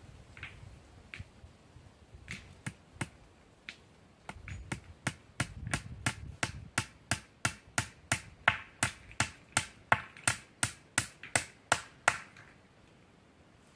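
Hand hammering at the joint where a horizontal wooden pole crosses an upright post: sharp, even strikes about three a second. They start sparse, come steadily from about four seconds in, grow louder near the middle and stop about twelve seconds in.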